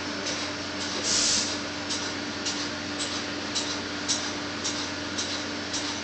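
Steady drone of workover rig machinery with a constant hum and a regular click about twice a second; a short louder hiss comes about a second in.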